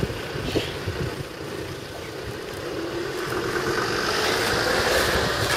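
Wind buffeting the microphone, with the engine noise of a passing vehicle swelling steadily louder through the second half.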